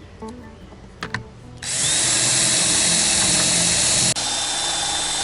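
Power drill starting about one and a half seconds in and running steadily at speed, drilling out a rivet that holds a fibreglass sailboat's deck to its hull, with a thin high whine from the bit. A click comes just before it starts, and the drill stops for an instant near the end and then runs on.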